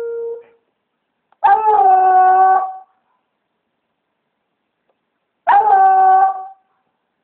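Redbone coonhound baying at a raccoon it has treed: the end of one bay fading out, then two full bays, each just over a second long and held at a steady pitch, about four seconds apart.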